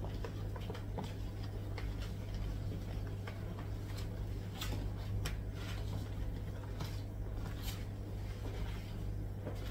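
Hands rubbing seasoning into raw prawns in a plastic tub: light, scattered clicks and taps of fingers and prawns against the plastic, over a steady low hum.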